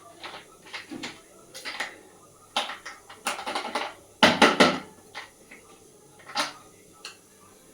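Irregular knocks and clatter of kitchen utensils on dishes, heaviest about four seconds in, as onion, ginger, green chilli and coriander are coarsely crushed for a masala paste.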